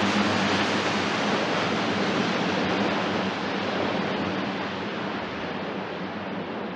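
Lockheed C-130J's four turboprop engines roaring steadily as the aircraft rolls out on a dirt landing. A low hum under the roar fades about three seconds in, and the whole sound slowly gets quieter as the aircraft moves away.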